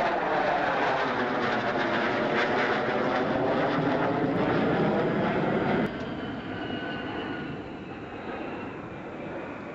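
General Dynamics F-111 Aardvark jet climbing away overhead, its twin turbofan engines loud, with sweeping, phasing tones as it passes. About six seconds in the sound cuts abruptly to a quieter, more distant large three-engined jet climbing away, with a faint falling whine.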